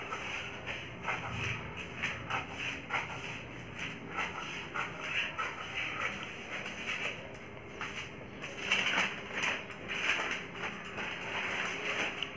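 Scissors snipping through folded newspaper, with the paper crackling and rustling as it is cut and handled; the crackling is loudest a little past the middle.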